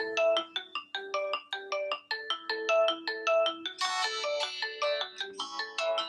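Redmi Note 5 Pro smartphone loudspeaker playing a ringtone: a quick melody of short, evenly paced notes, briefly fuller and brighter about four seconds in.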